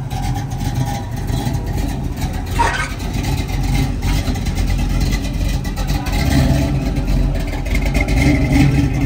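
A car engine running loudly.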